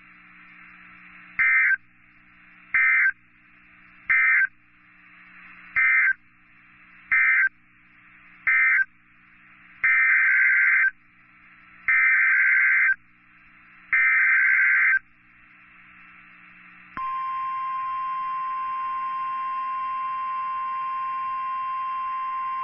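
EAS SAME digital data bursts: six short buzzy bursts closing the previous message, then three longer header bursts about two seconds apart announcing the next alert. About 17 seconds in, a steady NOAA Weather Radio warning alarm tone starts and holds.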